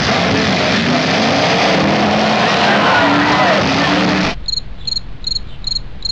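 Loud, dense noise of demolition-derby car engines. About four seconds in it cuts off suddenly to a quiet background of crickets chirping, about two to three high chirps a second.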